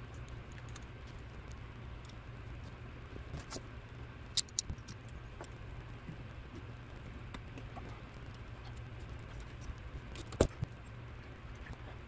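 Small metal carburetor parts clicking and tapping together as the Fiat 850's carburetor is reassembled by hand and worked with a screwdriver. There are a few sharp clicks about four and a half seconds in and one loud click about ten seconds in, over a faint low hum.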